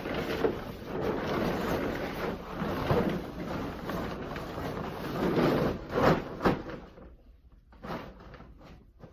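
Rustling and scraping as a tarp and an empty 40-gallon water heater are handled, with two sharp knocks about six seconds in. It goes much quieter for the last two seconds.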